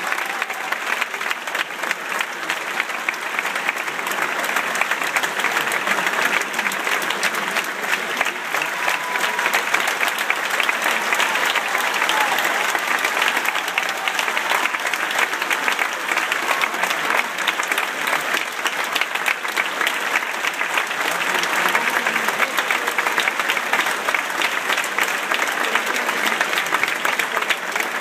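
A large theatre audience applauding, dense and steady clapping throughout.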